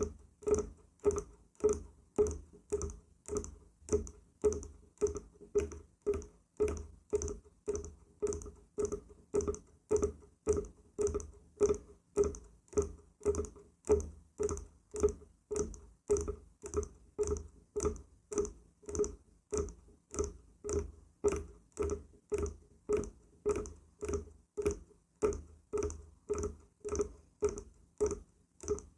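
Knocking on wood in a steady, even rhythm of about two knocks a second, each with a short ringing tone and a low thud.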